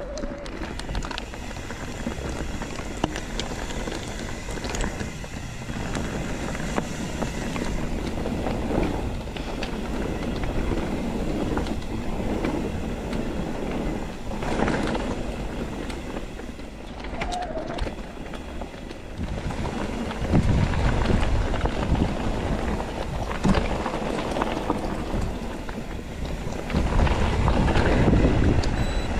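Mountain bike rolling slowly along a trail: tyre noise with rattles and knocks from the bike. Wind buffets the helmet camera's microphone, with heavier low rumbles about two-thirds of the way through and again near the end.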